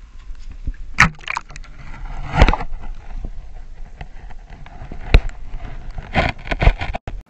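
Irregular knocks and scrapes, a few sharp ones about a second in, two and a half seconds in, five seconds in and a quick cluster near the end, with rustling noise between.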